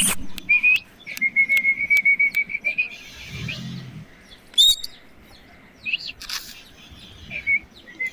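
Pet parakeet calling: a long, fast-wavering trill held near one pitch for about two seconds, then a sharp rising squawk in the middle and a couple of short chirps near the end. A few sharp clicks come in the first second.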